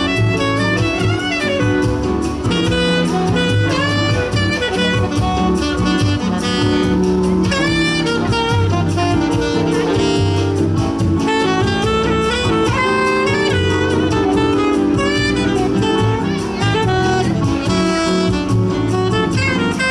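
Live jazz band playing, a saxophone carrying an ornamented melody over bass accompaniment.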